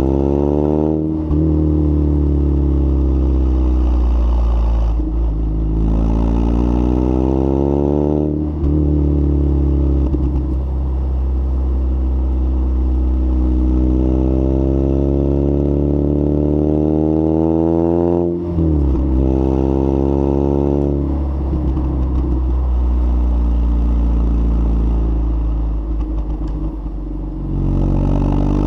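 Lotus Elise S1 111S's 1.8-litre Rover K-series VVC four-cylinder engine through a Bell & Colvill exhaust with the catalyst removed, running under load. The engine note rises and falls, with several sudden drops in pitch as gears change.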